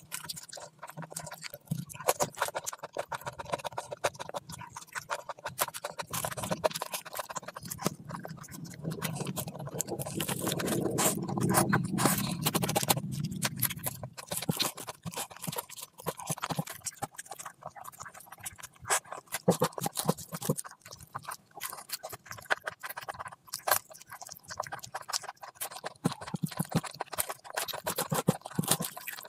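Close-miked wet chewing and lip smacking of meat curry and rice eaten by hand, a steady run of sharp, irregular mouth clicks, fuller and louder about halfway through. Squelches of fingers mixing rice into the curry gravy come near the end.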